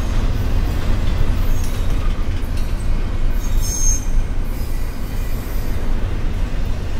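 Freight cars of a CSX intermodal train rolling past close by: a steady heavy rumble of steel wheels on rail, with a brief high wheel squeal about three and a half seconds in.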